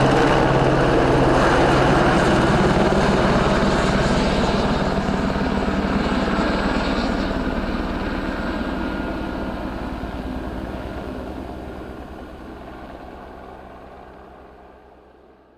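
A steady engine drone with a fast, even pulsing beat, fading out gradually over the last several seconds.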